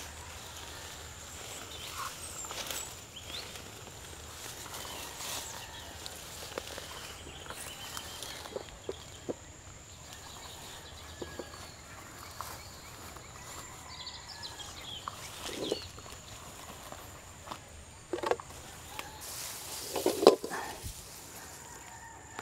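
Footsteps and rustling through tall grass, with birds chirping and a steady thin high whine throughout. Scattered short clicks and knocks, the loudest about twenty seconds in.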